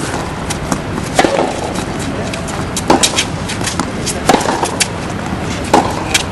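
Tennis rally: rackets striking the ball about once every second and a half, with lighter ticks between the hits, over a steady hiss.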